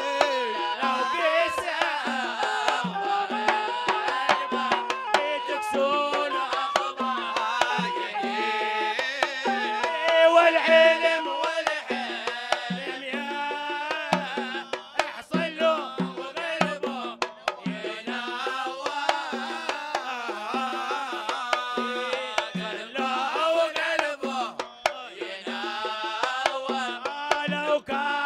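Hadrami zarbadi song: a singing voice carrying the melody over hand drums beating a steady rhythm.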